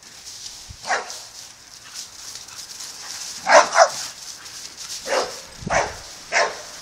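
Pit bull barking: six short barks spaced a second or so apart, with a quick double bark in the middle the loudest.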